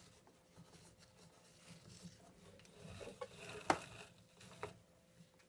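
Faint rustling and scraping of a fibre rope being wrapped around a wooden billet on a spring-pole lathe, with a few light clicks and knocks, the sharpest a little past halfway.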